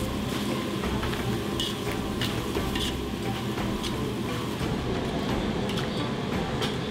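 Lamb offal and dried chillies sizzling in a hot wok while a metal ladle stirs and scrapes through them, with a few sharp clinks of the ladle against the wok.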